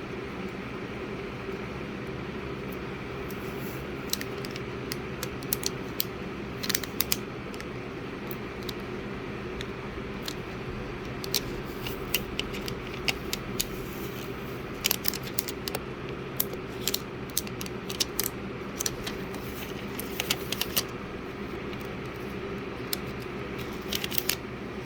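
Irregular small sharp clicks and taps of hand tools and parts being handled while an iPhone XS Max is reassembled, over a steady background hum.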